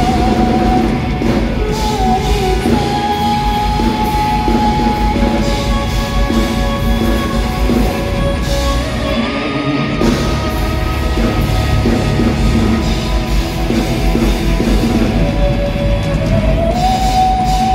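A live pop-rock band playing loudly while a woman sings long held notes, sliding from one pitch to the next, over the full band.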